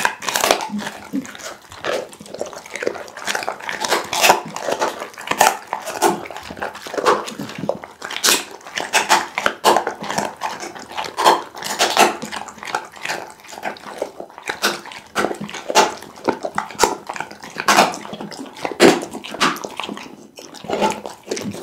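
American pit bull terrier chewing raw meat close to a microphone: a dense, irregular run of chewing clicks with a few louder snaps.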